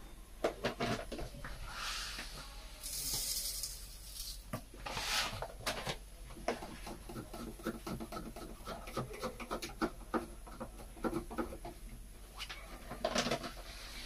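Light clicks, knocks and rattles of hands working in an open dishwasher's wire racks, with a run of quick small clicks and a few short hissing rushes.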